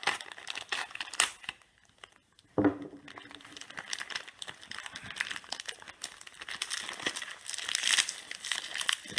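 Plastic postal mailer bag crinkling and tearing as it is cut with a knife and pulled open by hand, with one sharp knock about two and a half seconds in.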